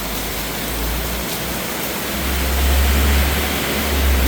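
Heavy rain pouring down in a steady hiss, with a low rumble underneath that swells about two seconds in.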